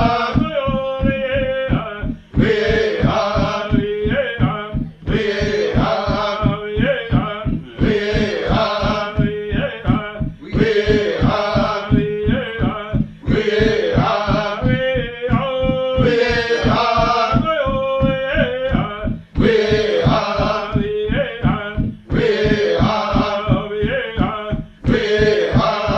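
Male voices chanting a short sung phrase that repeats about every three seconds, over a steady, fast drum beat.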